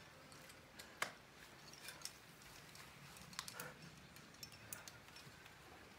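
Near silence with a few faint scattered clicks and taps; the sharpest click comes about a second in, and a small cluster of them a little past the middle.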